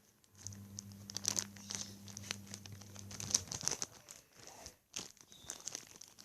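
Plastic crinkling and crackling in irregular bursts as a squishy toy is handled, most likely its plastic packaging. A low steady hum sounds under it for the first three seconds or so.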